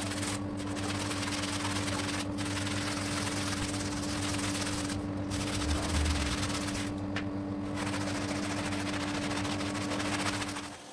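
Time-lapsed, sped-up scrubbing of a foamy rug with a stiff plastic brush: a dense, fast rattling hiss that breaks off briefly three or four times. A steady low hum runs underneath, and both cut off just before the end.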